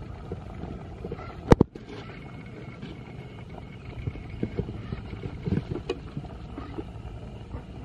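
Pot of curry boiling, a steady low rumble, while a metal ladle stirs it and knocks against the aluminium pot. There is one sharp clack about a second and a half in, and lighter clinks around the fifth and sixth seconds.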